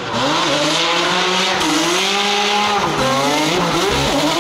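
Drift car in a slide: its engine revving, the pitch rising and falling several times as the throttle is worked, over a steady hiss of spinning, squealing tyres.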